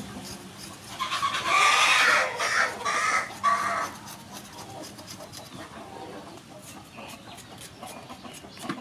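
A chicken calls loudly about a second in: a run of several pitched notes lasting nearly three seconds. Under it, faint scraping clicks of a spoon scraping the peel off ginger root.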